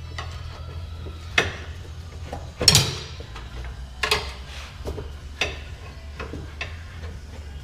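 Scattered sharp clinks and knocks of tools and parts being handled during motorcycle tire work, the loudest about three seconds in, over a steady low hum.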